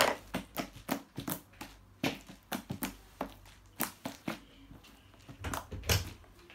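Sticky slime being pressed and pulled as it is packed back into a container, giving a run of irregular clicks and crackles.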